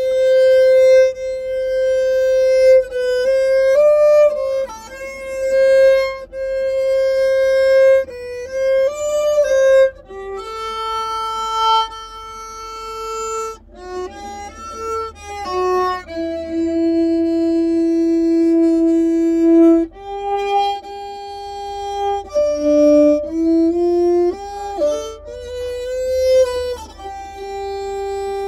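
Solo violin playing a slow melody of long held notes, with a few slides between notes.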